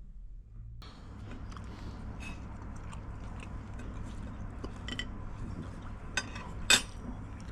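Small clicks and clinks of things being handled, over a steady low hum, with two sharp louder clicks near the end.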